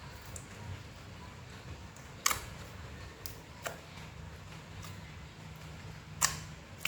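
Sharp pops and clicks of slime being squeezed and stretched by hand, about six scattered through, the loudest a little past two seconds in and again near the end.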